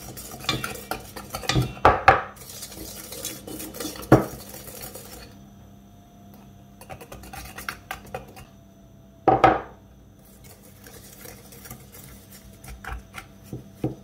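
Hand whisk clinking and scraping in a stainless steel mixing bowl as flour is worked into whisked egg yolks and sugar, with three louder clanks on the bowl about two, four and nine seconds in.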